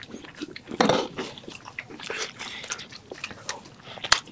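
Chewing and biting into soft chicken shawarma wraps: wet mouth sounds with scattered smacks and clicks. There is a louder bite about a second in and a sharp click near the end.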